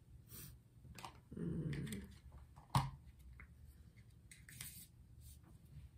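Quiet small handling noises: faint rustles and clicks, a short low sound about a second and a half in, and one sharp click near the middle.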